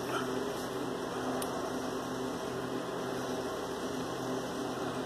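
Steady electrical hum with a low buzzing drone from a mains-powered device running.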